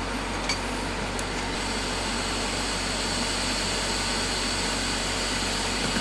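Steady whirring air noise from a bench extractor fan and a room air conditioner, with a hot air rework station blowing. A thin higher hiss comes in about a second and a half in.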